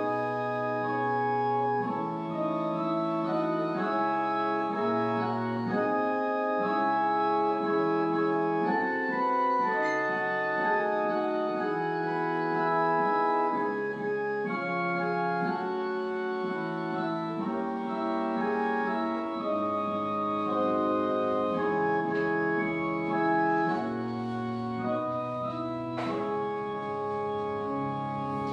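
Organ playing slow music in sustained, held chords that change about once a second, at an even, moderate level.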